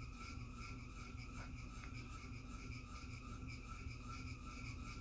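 Quiet room tone: a faint steady electrical whine and low hum, with two small ticks about a second and a half and two seconds in.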